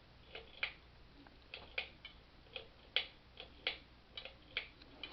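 A string of light clicks, mostly in pairs about a third of a second apart, about five pairs in all.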